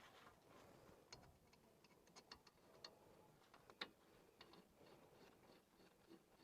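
Near silence with faint, scattered light clicks and taps, and one sharper click about four seconds in.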